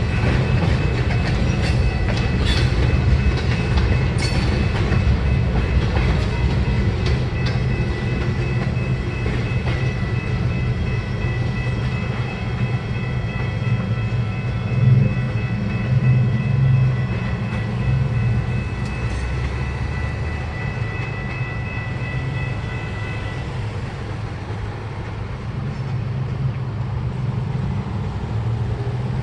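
Freight train cars rolling past at a grade crossing: a steady low rumble with clacking wheels over rail joints in the first several seconds. A steady high ringing tone runs over it and stops about three-quarters of the way through, as the end of the train clears.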